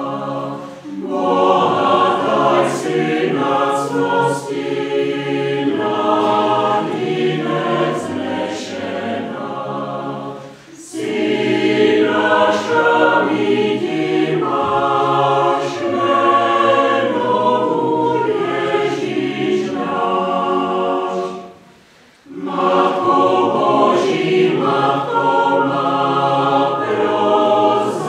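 Mixed choir of women's and men's voices singing unaccompanied in several parts. The phrases break briefly about a second in and about ten seconds in, and there is a short near-silent pause about twenty-two seconds in before they sing on.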